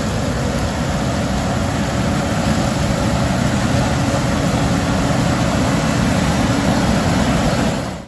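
Case IH 2388 combine harvesting corn at close range: its diesel engine and threshing machinery run with a loud, steady, full-range rush, growing slightly louder as it draws near.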